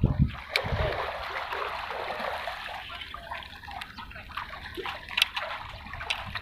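Water trickling and splashing in a steady rush, with a few small sharp clicks.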